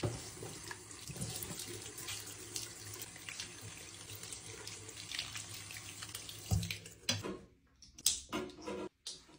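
Tap water running into a bathroom sink as a nylon dog leash and harness are rinsed under it by hand. The water stops about seven seconds in, followed by a few short clicks and knocks as a harness is hung on a metal towel bar.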